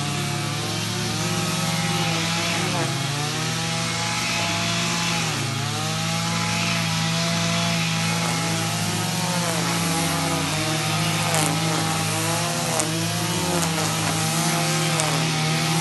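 Petrol string trimmers (brushcutters) cutting grass, more than one engine running at once. Their pitch rises and falls again and again as the throttles are worked, over a steady engine hum.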